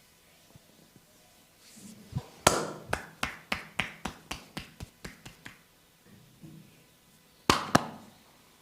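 Percussive massage: hands striking the body in a quick, even run of about a dozen sharp claps, roughly four a second and getting softer, then two louder claps near the end.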